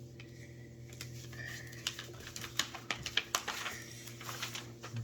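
Irregular light clicks and taps from hands handling paper and tape on a tabletop, over a steady low hum.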